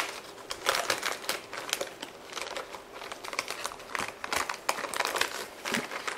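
Plastic packaging crinkling as a hand rummages in a shipping box and grips a circuit board in its metallised anti-static bag. Irregular crackles throughout, the sharpest right at the start.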